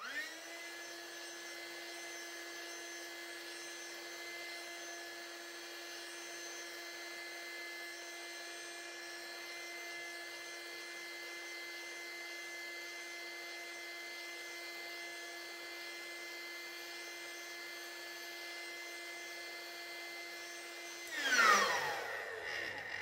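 Small battery-powered electric air pump (inflator) running with a steady whine. About 21 seconds in it is switched off: a brief louder surge, then the pitch falls as the motor winds down.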